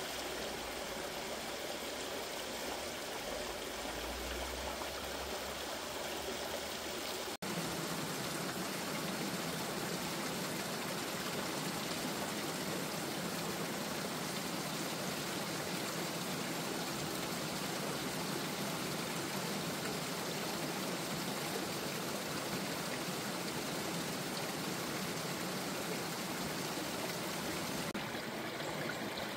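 Meltwater of a small mountain stream running and splashing over rocks among melting ice, a steady rush of water. About a quarter of the way in it cuts out for an instant and comes back with a fuller sound.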